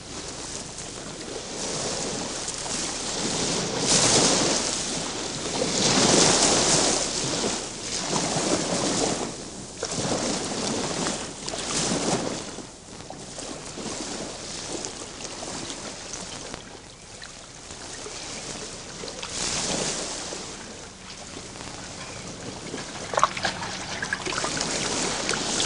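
Surf washing on a rocky shore: a rushing noise that swells and fades every few seconds as waves break and draw back.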